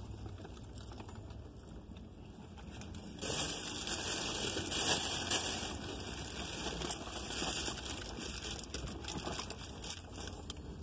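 Paper or plastic food packaging being handled, crinkling and rustling. It starts suddenly about three seconds in, is loudest for the next few seconds, then goes on as lighter crinkles.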